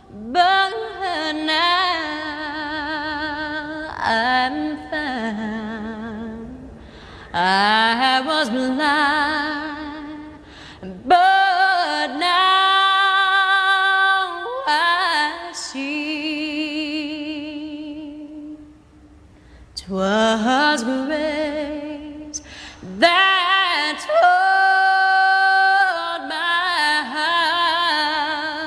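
Background music: a woman singing with a wavering vibrato and long held notes, the phrases broken by short pauses.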